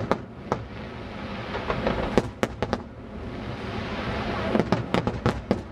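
Aerial fireworks shells bursting in a string of sharp bangs over a steady low rumble, with a quick run of bangs near the end.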